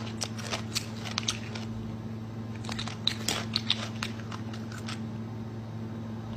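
A steady low hum with scattered small clicks and crackles over it.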